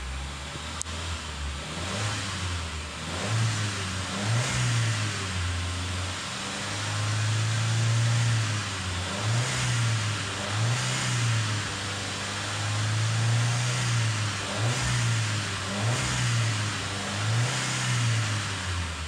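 A 2014 VW Caddy Maxi's 1.2-litre turbo petrol four-cylinder revved repeatedly while parked, heard from inside the cabin. The revs climb to roughly 3,000–4,000 rpm and fall back again and again, held up for a couple of seconds twice, then drop toward idle at the very end.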